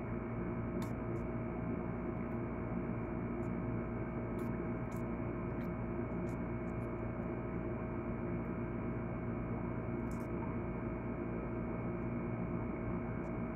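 A steady hum made of several held tones, with faint small clicks now and then.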